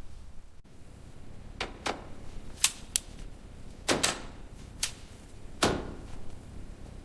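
A run of about eight sharp clicks and knocks of hard objects at uneven intervals; the loudest is a crack about two and a half seconds in.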